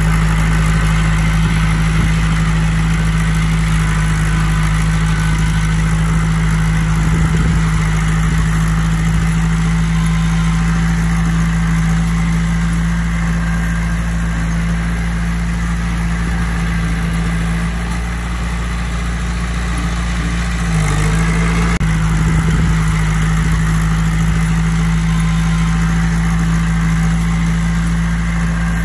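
Heavy diesel engine of earthmoving machinery running steadily, its note dipping briefly about 21 seconds in and then recovering.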